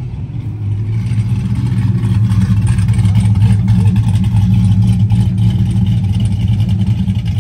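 Chevrolet Camaro driving slowly past close by, its exhaust a steady low note that grows louder about a second in and then holds even, without hard revving.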